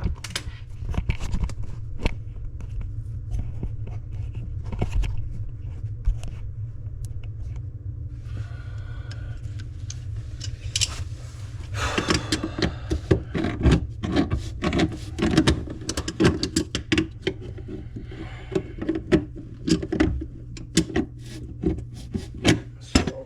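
Hand tools working on a corroded sink drain under the basin, metal clicking and scraping. About halfway in this turns into a run of rhythmic scraping strokes, a couple a second, over a steady low hum.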